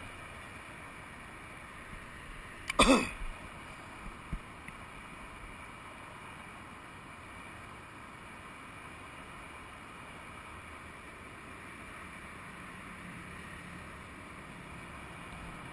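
Steady low outdoor background noise, with one short, loud throat clearing about three seconds in and a small click a second later; a faint low hum joins near the end.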